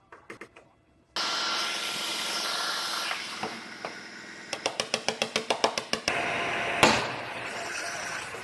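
A few faint clicks from the stud welder, then a heat gun switched on about a second in and blowing steadily. Partway through, a quick run of about a dozen light body-hammer taps on the aluminum hood, and a single sharp knock a little later.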